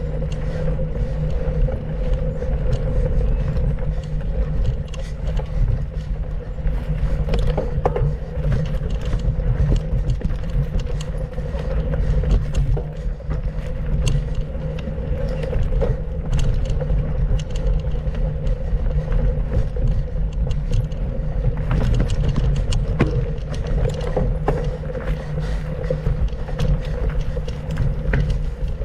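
Mountain bike ridden over a dirt trail: a steady low rumble of tyres and wind on the camera mic, with frequent clicks and rattles from the bike over bumps.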